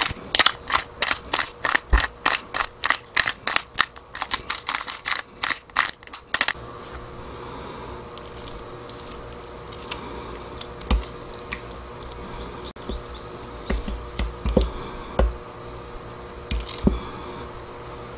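Hand-twisted pepper grinder grinding over a glass bowl: a fast crunching rattle, about four strokes a second, that stops after six seconds or so. Then a metal spoon stirs thick chili-paste sauce in the glass bowl, with a few scattered soft knocks and taps against the glass.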